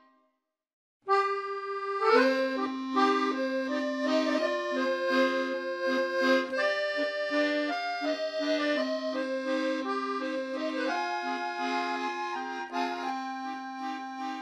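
Accordion music, an instrumental tune of held chords and moving melody notes, starting about a second in after a short silence.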